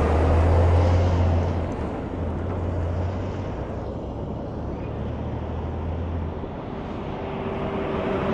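Freightliner Cascadia semi-truck's diesel engine and tyres as the tractor-trailer pulls away. The low engine drone is strongest at first, then weakens and fades out about six seconds in as the truck recedes down the road.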